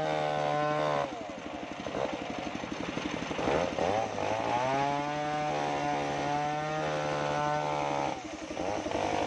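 Engine-driven circular saw of a portable sawmill ripping waru wood planks. The engine runs at a steady pitch, turns rough and lower about a second in as the blade works through the wood, climbs back up to speed around four to five seconds in, and sags briefly again near the end.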